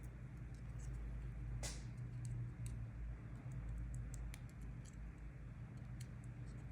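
Faint scattered small clicks and ticks of small parts and tools being handled in phone repair work, with one louder click about two seconds in, over a low steady hum.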